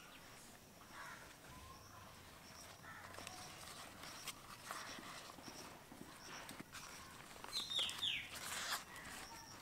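Faint rustling and crinkling of a heat-wilted banana leaf being folded up around a rice filling into a bundle. A few short bird chirps sound in the background, with two or three quick falling chirps about eight seconds in.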